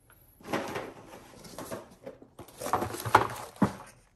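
Unboxing handling noise: plastic accessory bags crinkling and a cardboard accessory tray scraping inside the carton, in two bouts of rustling with a couple of sharp taps in the second.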